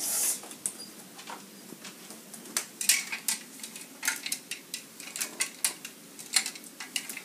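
Clothes hangers clinking and sliding along a closet rail as hanging clothes are pushed aside, a run of irregular sharp clicks.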